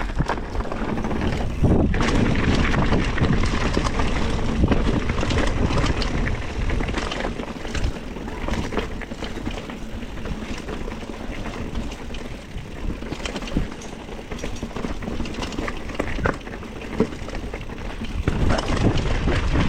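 Mountain bike rolling over a dirt trail: steady tyre and ground noise with frequent rattles and knocks from the bike.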